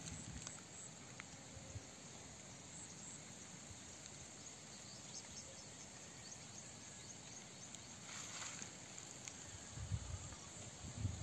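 Faint outdoor ambience of insects, a steady high-pitched drone with a few light ticks. A brief rustling swell comes about eight seconds in, and low rumbles near the end.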